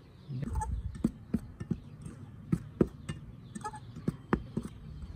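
Metal fork clinking and scraping against a stainless steel mixing bowl while stirring dry flour and baking powder, in irregular taps two or three a second.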